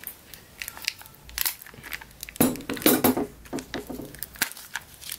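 Shiny foil wrapper of a surprise chocolate egg crinkling as it is snipped with scissors and peeled off by hand, in an irregular run of crackles and small clicks.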